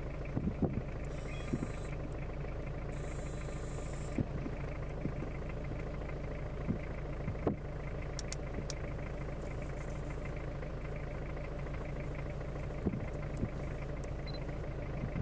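A vehicle engine idling, a steady low hum with a few faint clicks.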